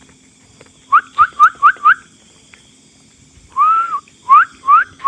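Loud whistled notes, each sliding upward in pitch. First come five quick whistles at about four a second, then after a pause one longer arching whistle, then three more rising whistles.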